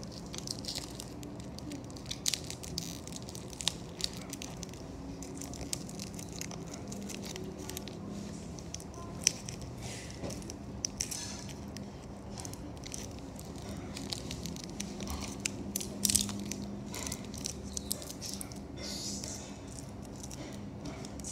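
Clear plastic tape wrapping on handmade cotton-ball squishies crinkling and crackling as it is handled, with scattered sharp clicks.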